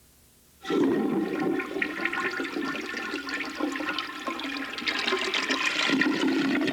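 A toilet flushing: water rushing and gurgling, starting suddenly under a second in.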